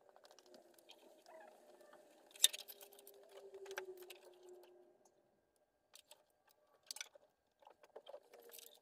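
A car door being opened, with a sharp latch click about two and a half seconds in, then faint knocks and rustling as someone handles things at the open door.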